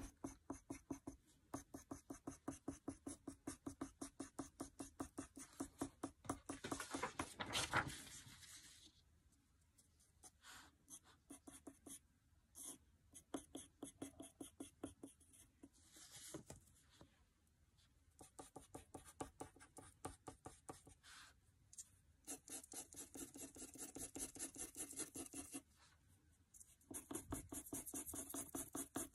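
Graphite pencil cross-hatching on paper: quick, scratchy back-and-forth strokes at about five a second, in long runs broken by a stretch of slower, scattered strokes midway.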